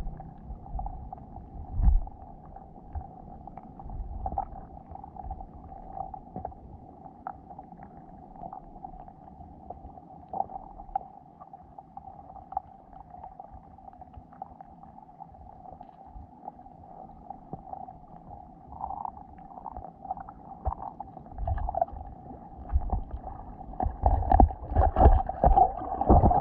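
Muffled underwater sound picked up by a GoPro inside its waterproof housing on the lake bed: a steady hum with low rumbling bumps, growing louder near the end.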